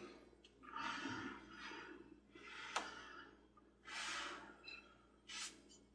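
Faint breathing: four short breaths or sighs about every second and a half, with one light click just before the middle.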